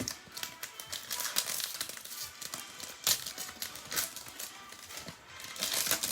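Basketball trading cards being handled and flipped through, with quick crisp rustles, flicks and slides of card stock and plastic. Quiet background music plays underneath.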